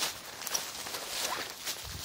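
Footsteps swishing through tall meadow grass, the stalks rustling against legs with each stride, several steps at an uneven pace.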